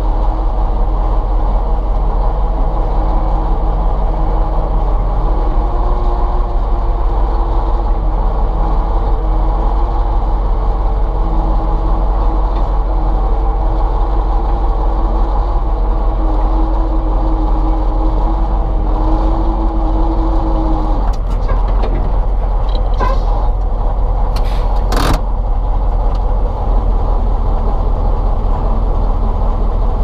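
Ural logging truck's YaMZ-238 V8 diesel running steadily under way, its pitch rising a little and then dropping about two-thirds of the way through. A few sharp knocks and clanks follow near the end.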